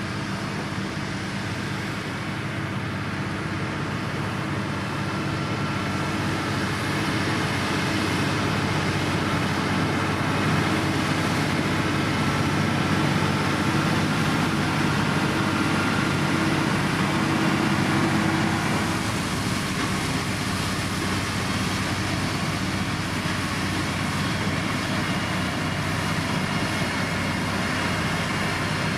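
Heavy diesel road-construction machinery, a motor grader or road roller, running steadily under work. It grows slightly louder, then eases a little about two-thirds of the way through.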